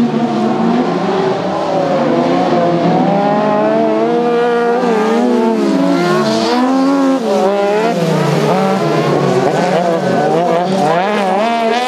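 Several crosskart buggy engines revving hard together, their pitch rising and falling as they shift and pass, with a brief tyre scrub hiss about six and a half seconds in.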